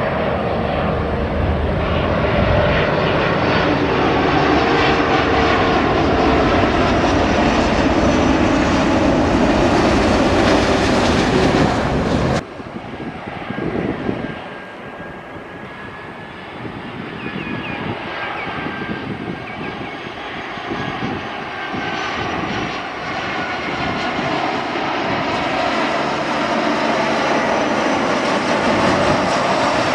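Twin-engine jet airliners on final approach. A loud, steady jet roar from one passing low cuts off abruptly about twelve seconds in, and a quieter approaching jet follows, its engine whine growing steadily louder.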